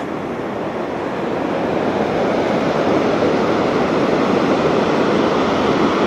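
Steady rushing of the Vøringsfossen waterfall, a continuous noise of falling water that grows slightly louder over the first few seconds.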